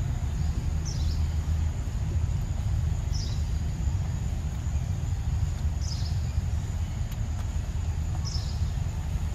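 Outdoor ambience: a steady low rumble, a constant high insect drone, and a short bird call repeated four times, about every two and a half seconds.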